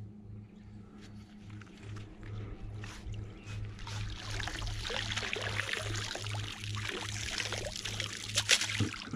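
Water splashing and streaming as a magnet-fishing magnet and a clump of lake weeds are hauled up out of the water on a rope, starting about four seconds in, with a sharp knock near the end. A low pulsing hum runs underneath.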